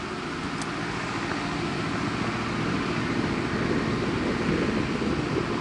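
Steady street traffic noise, slowly growing louder.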